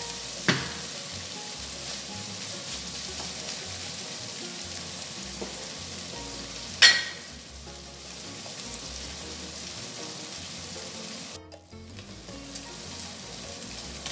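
Diced bacon and mixed vegetables sizzling steadily in a hot frying pan while being stir-fried. A wooden spatula knocks twice, the louder knock about seven seconds in, and the sizzle briefly cuts out shortly before the end.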